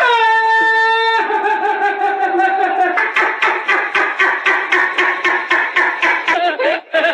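Comedy sound clip playing from the phone in a try-not-to-laugh video: one held, buzzy note for about a second, then a lower note sliding slowly down, then a fast pulsing pattern until just before the end.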